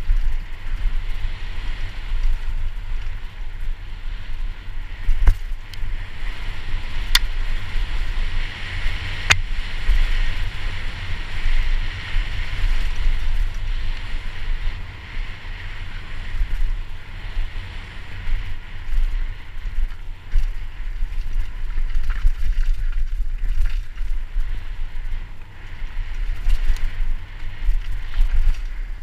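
Downhill mountain bike rattling and rolling fast over a dirt trail, heard from a helmet-mounted camera, with heavy wind buffeting on the microphone. A few sharp knocks, about 5, 7 and 9 seconds in, as the bike hits bumps.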